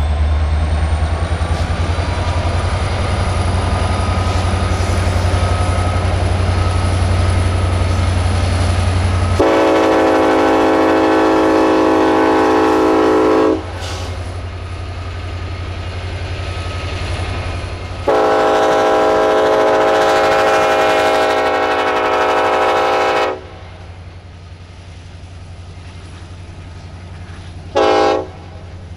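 BNSF diesel-electric freight locomotives passing close with a deep engine rumble and a slowly rising whine, then the locomotive's air horn sounds two long blasts a few seconds apart and one short toot near the end, the pattern of a grade-crossing signal. Between and after the blasts the train's running noise carries on more quietly.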